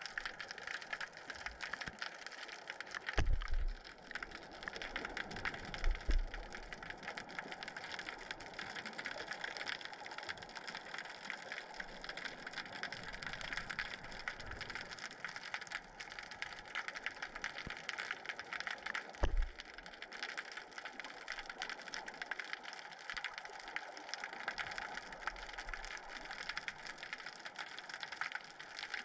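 Underwater ambience picked up by a submerged camera: a steady, dense crackle of fine clicks, with a few low thumps about three, six and nineteen seconds in.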